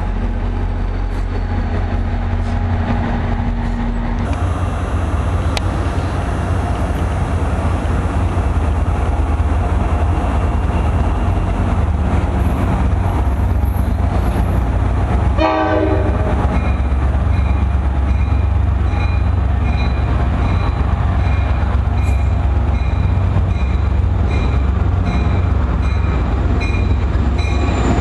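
Low diesel rumble of NJ Transit locomotives: one moving past, then another train approaching and drawing alongside. A bell rings steadily at about one strike a second from about two-thirds in.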